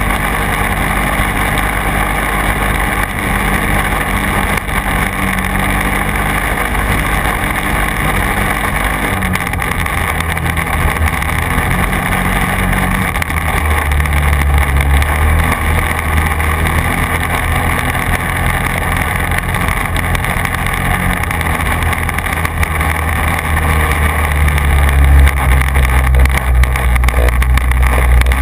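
Quad bike (ATV) engine running under way on a dirt track, its note changing in steps a couple of times, with a deeper, louder drone from about halfway on.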